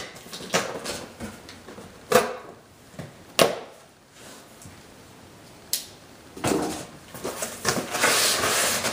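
Parts being handled in a box: three sharp knocks as metal exhaust pipe bends are lifted out, then a few seconds of rustling packing material.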